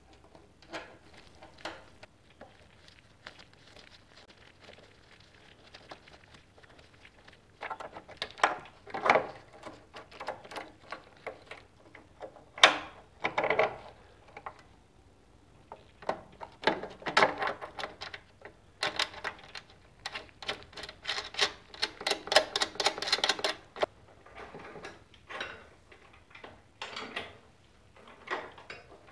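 Hands fitting small metal parts of a 1978 Honda ATC 90: the spring-loaded pedal linkage and cable ends. Irregular clicks, clinks and short rattling bursts, with quiet gaps between and one sharp click about halfway through.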